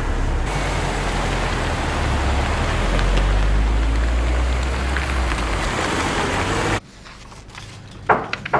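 Car engine running as the car moves off, a steady low rumble with road noise, cutting off abruptly near the end. It is followed by a few short rustles of paper being handled.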